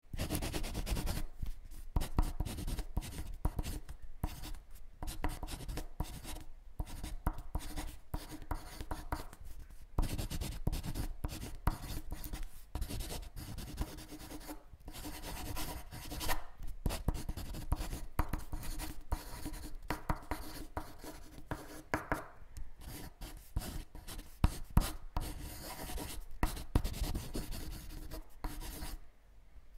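Writing on paper: quick, irregular scratching strokes with brief pauses.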